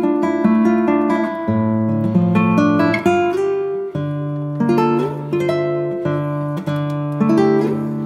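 Background music on acoustic guitar: plucked notes and chords.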